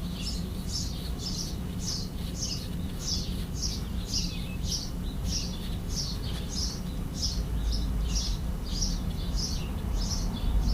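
A bird calling over and over, a steady series of short high chirps at about two a second.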